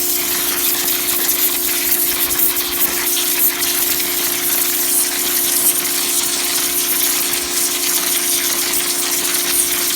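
A small 1,700 PSI pressure washer sprays a steady, hissing water jet onto black walnuts to strip their hulls, over the constant hum of its pump.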